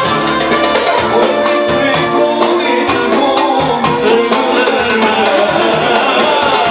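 Live amplified Arabic dance music with a steady, quick drum beat, and a male singer singing into a microphone over it.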